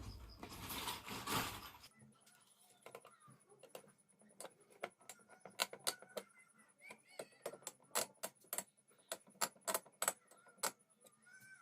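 Irregular sharp clicks and taps of small hard parts being handled, after a rustle in the first two seconds: hands fitting the stock CPU cooler onto the motherboard.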